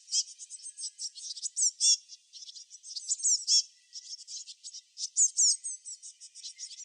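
Small songbirds chirping: rapid, high twittering notes and quick sweeping calls in clusters, with brief pauses between them.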